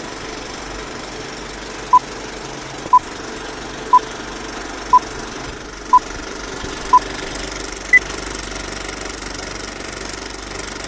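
Old-film countdown leader sound effect: a steady film projector rattle with a short beep once a second, six at one pitch, then a seventh, higher beep about eight seconds in.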